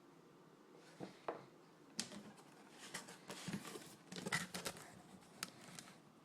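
Handling noise: a scattered series of short rustles and sharp clicks, like packaging or an unboxed item being moved about.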